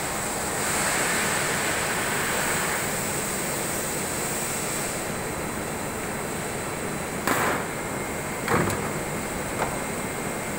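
Steady machine noise from an extrusion blow molding machine with an even hiss. A few sharp knocks in the second half, the loudest about three quarters of the way in.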